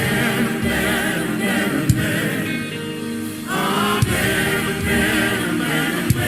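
A gospel choir singing a slow worship chant over music, with a sharp beat about every two seconds.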